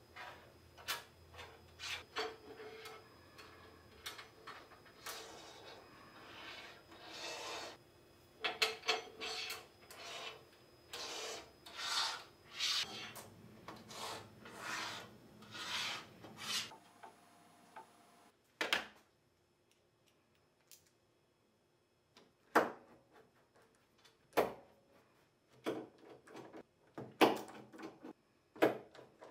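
Small metal T-nuts scraping and sliding along the channels of an aluminium extrusion T-slot table, in repeated rubbing strokes for roughly the first half. After a quiet gap, sharp separate clicks and knocks as an MDF board is screwed down onto the table with a hand screwdriver.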